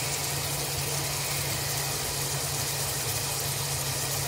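Oil sizzling steadily in a pot of frying chopped tomatoes and spice powders, as an even hiss over a steady low hum.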